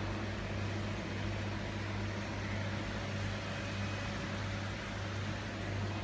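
Steady low hum with an even, fan-like hiss from running aquarium equipment.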